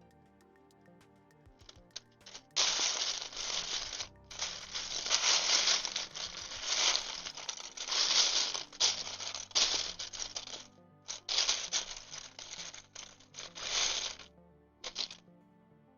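Soft background music under loud rustling, rattling noise that comes in uneven stretches with short gaps from about two seconds in until near the end.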